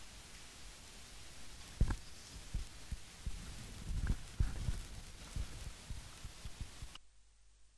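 Steady recording hiss with a run of irregular low thumps starting about two seconds in. The hiss cuts off abruptly near the end.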